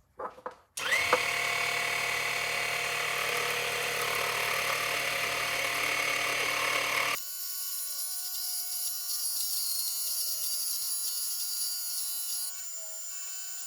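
Micro metal lathe's small 60 W motor spinning up quickly after a couple of clicks about a second in, then running with a steady high whine and the noise of the tool cutting. About seven seconds in the sound drops abruptly and loses its low end, and a steady whine goes on.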